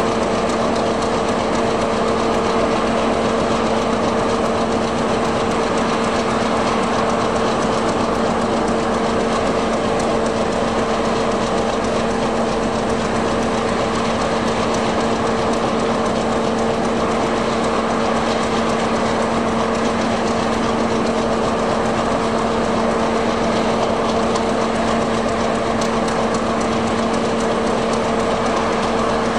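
Diesel locomotive engine running steadily at an unchanging pitch, a steady hum under a dense mechanical clatter.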